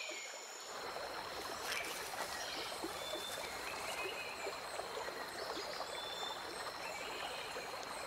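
Quiet river ambience of running water, with a steady high-pitched whine and a few short high chirps over it; the water sound fills out a little under a second in.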